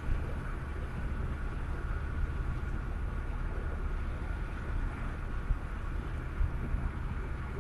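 Steady road noise of a car travelling at highway speed, heard from inside the cabin: a constant low rumble of tyres and engine with a faint steady hum above it.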